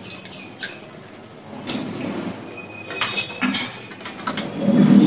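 People eating at a table: small clicks and clinks of a spoon on steel plates, with chewing and mouth sounds, and a brief low murmur near the end.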